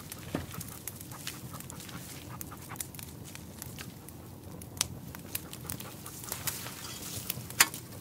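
Irregular sharp crackles and snaps of dry brush and twigs, with one loud snap near the end.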